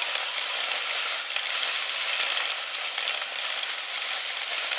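Rotary brush of a 7¼-inch gauge rail-cleaning trolley sweeping dirt and grit off the track as it runs along, a steady scouring noise.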